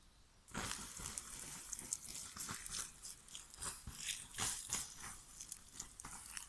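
Campfire embers hissing and crackling as water is poured over them to put the fire out, starting about half a second in with a dense run of sharp crackles.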